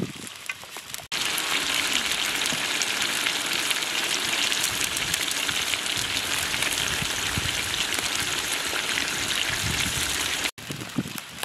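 Chicken pieces with tomatoes and peppers frying in hot oil in a large pot over a wood fire: a dense, steady sizzle that starts suddenly about a second in and cuts off near the end.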